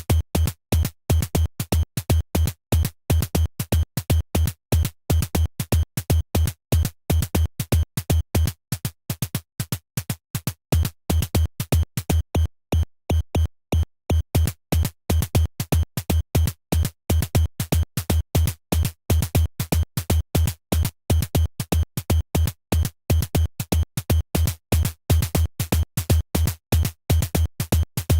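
Synthesized kick and snare drums from a PureData patch playing a fast, repeating Euclidean rhythm, the kick bit-crushed with lowered bit depth and sample rate. The pattern thins out for a few seconds around the middle.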